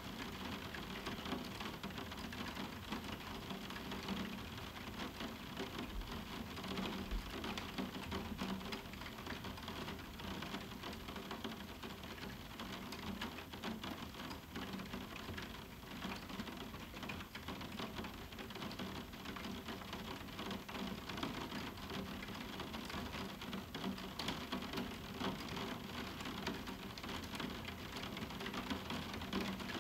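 Moderate summer rain falling on a roof window: a steady, dense stream of small drop impacts ticking on the pane.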